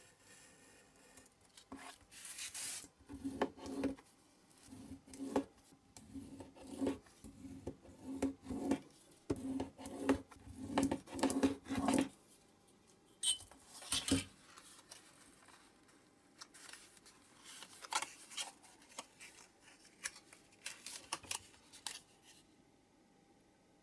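Snap-off utility knife scoring and cutting thin card along a steel ruler: a run of short scraping strokes, about one or two a second, for some ten seconds. After that come fainter rustles and ticks as the card is creased and folded.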